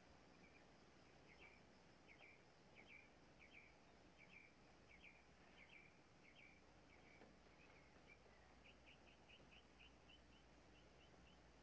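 Faint bird chirps in a steady series, about one every two-thirds of a second, turning into a quicker run of shorter chirps near the end, over near silence.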